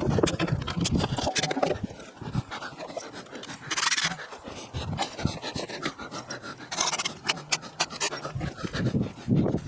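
Heavy panting breaths, coming in uneven swells, with small clicks and knocks between them.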